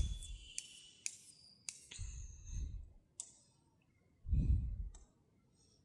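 About five scattered sharp clicks while the presentation slide is changed, with three soft low rumbles in between, picked up close on a headset microphone.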